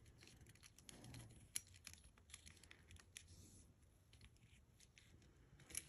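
Near silence broken by faint, scattered small clicks and rustles of a cuff bracelet being handled and measured.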